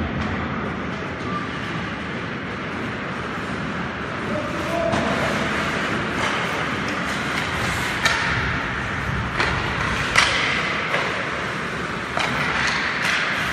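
Ice hockey play in an indoor rink: sharp clacks of sticks and puck, several in the second half and the loudest about two-thirds of the way through, over steady rink noise and voices.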